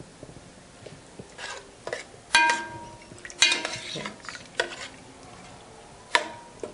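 A metal spoon stirring chopped kidney and gizzard in a stainless steel pot. It scrapes the pot and clanks against it about four times, each clank ringing briefly.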